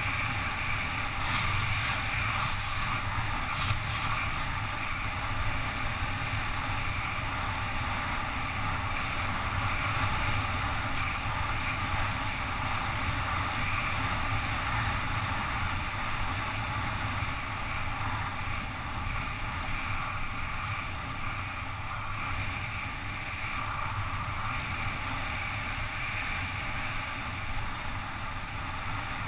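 Wind rushing over a helmet-mounted camera on a fast downhill bicycle ride: a steady rush with a low rumble underneath.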